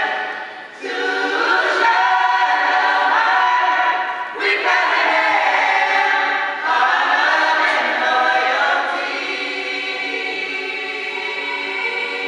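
High-school chorus singing in parts, holding sustained chords in phrases, with short breaks about a second in and again about four seconds in.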